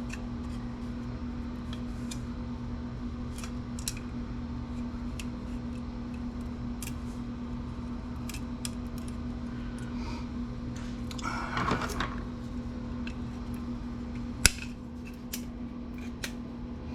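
Small clicks and light handling of computer parts over a steady low hum, with a brief rustle or scrape about two thirds of the way in and one sharper click a little after.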